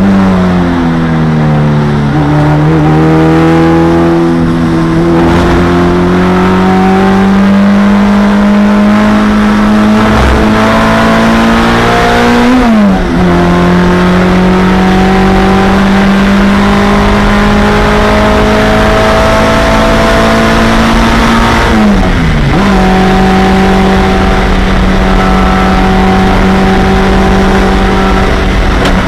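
Onboard sound of a 1987 Honda CRX Si race car's four-cylinder engine at full throttle, with road and wind noise underneath. The note dips and recovers right at the start, then climbs steadily. It drops sharply at two upshifts, about 13 and 22 seconds in, the second into fifth gear, and climbs again after each.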